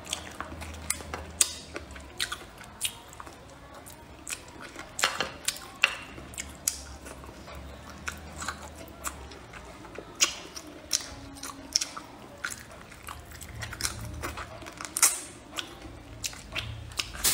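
Close-up mouth sounds of a person gnawing and chewing braised pork off the bone: irregular wet smacks, bites and clicks.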